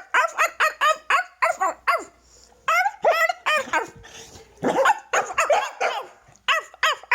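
Dachshund barking in quick runs of short, high yaps with brief pauses between, talking back while it is being scolded.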